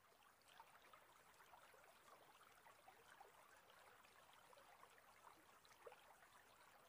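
Faint babbling of a shallow river current, a soft steady wash flecked with many small splashes.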